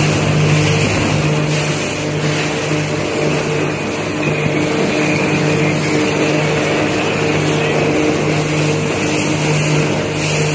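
Yamaha jet boat running with a steady, unchanging engine drone over an even rushing noise.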